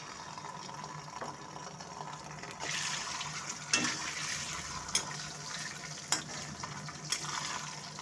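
Ginger-garlic paste sizzling in hot oil in a kadhai. The sizzle grows louder about two and a half seconds in as it is stirred, with a few sharp knocks of the steel spoon against the pan.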